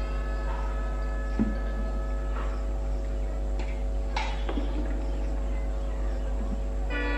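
Diesel locomotive approaching, a steady drone of several held tones with a short sharp click about a second and a half in. Its horn starts to blow right at the end.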